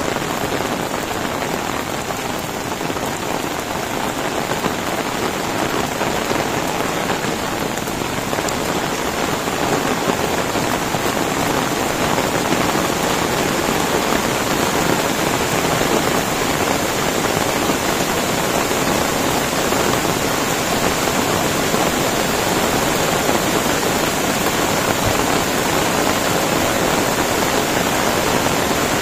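Heavy tropical rain falling steadily in a dense, even hiss, mixed with the rush of a swollen river running in rapids below. The sound grows a little louder about a third of the way in.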